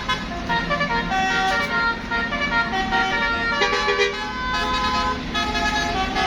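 Bus 'telolet' Basuri multi-tone horn playing a tune of short stepped notes, some held longer near the middle, over the bus engine's steady running.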